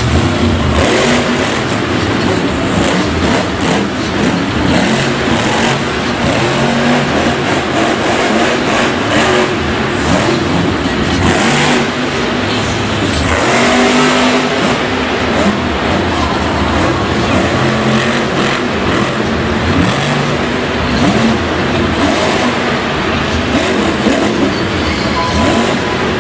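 Monster truck's supercharged V8 engine running loud and revving hard as the truck drives and tips up onto two wheels, its pitch rising and falling throughout.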